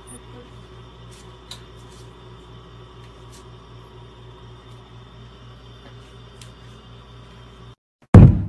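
A steady hum with a faint low pulse about four times a second and a few faint clicks. The hum cuts off near the end, and a hand knocks once, loudly, on a cabinet drawer.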